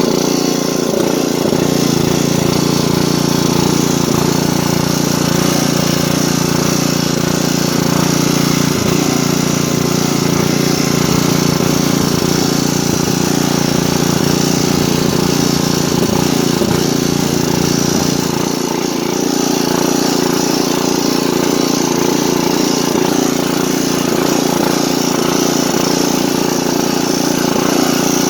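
Riding lawn tractor's engine running steadily while the tractor is driven. About two-thirds of the way through, the deepest rumble drops away and the engine carries on.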